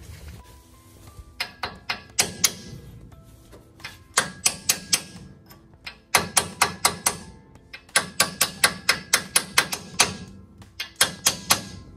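Hammer blows on a steel drift, driving the bearing cup into the end of a Dana 44 rear axle housing: sharp metallic taps with a short ring, in quick runs of four to eight strikes with brief pauses between.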